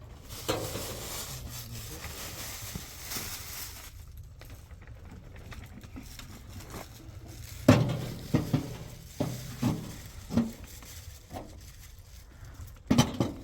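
Household clatter: a soft rustling hiss, then a run of sharp knocks and clatters, several close together about eight seconds in and two more near the end.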